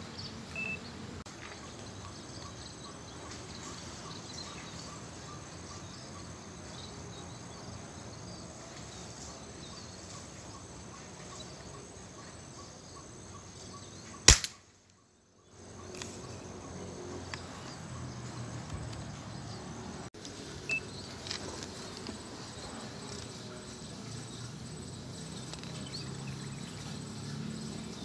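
Outdoor ambience with insects chirping steadily. About halfway through comes one sharp, loud crack of an air rifle firing a 4.5 mm pellet, followed by a brief gap of silence.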